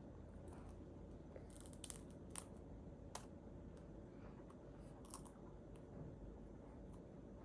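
Faint, scattered crunches and crinkles against quiet room tone, a handful of short sharp clicks in small clusters, from a baby's puffed-rice snack (tteokppeong).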